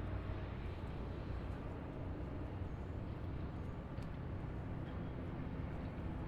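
Steady road noise of a car driving on a highway: an even low rumble of tyres and engine with a faint steady hum, no gaps or changes.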